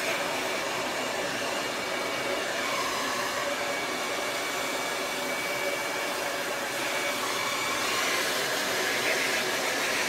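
Handheld hair dryer with a concentrator nozzle running steadily, an even rush of air with a faint steady whine in it.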